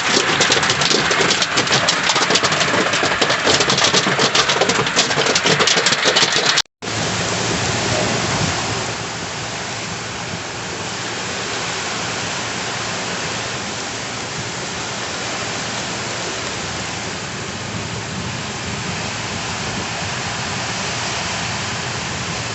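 Heavy rain pounding on a car's roof and windows. For about the first seven seconds it is a loud, dense patter of drops. After a brief cut it continues as a steadier, softer wash of rain.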